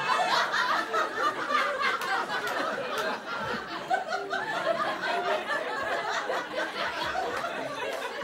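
Comedy club audience laughing together, a sustained wave of many voices that holds for several seconds.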